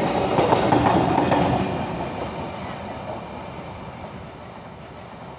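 Container freight train's wagons rattling over the rail joints at speed. The clatter fades steadily from about two seconds in as the train moves away.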